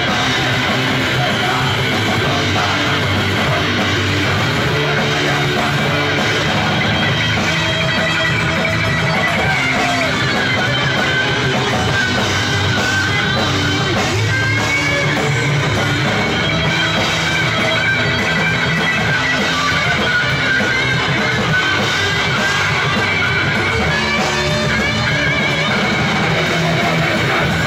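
A live rock band playing loud, with electric guitar and drum kit, the sound dense and unbroken.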